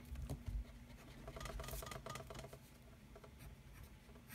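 Pencil scratching on paper in quick strokes as a diagram is drawn, with a few soft low thumps near the start.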